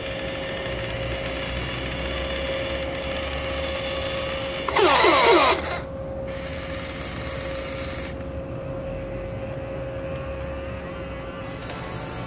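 Small electric motor of a battery-powered toy fire truck whirring steadily as its aerial ladder raises. About five seconds in comes a short, loud burst of falling, sweeping electronic tones.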